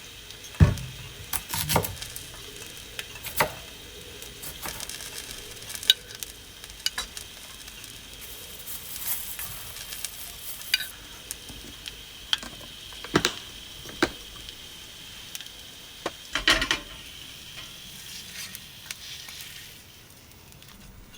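Food sizzling in a pan, with irregular clacks and scrapes of a utensil stirring against the pan. The sizzle dies down near the end.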